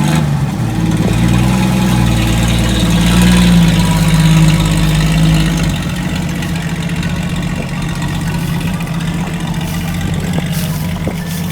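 Toyota 2F straight-six in a Land Cruiser FJ55 running, its note rising over the first few seconds, then dropping back about six seconds in and running steadily.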